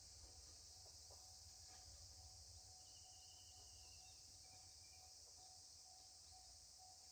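Faint, steady high-pitched insect chirring, with a short high whistle about three seconds in.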